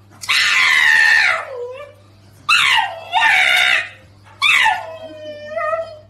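Pug dog screaming as it is handled: three long wails, each sliding down in pitch, with short pauses between.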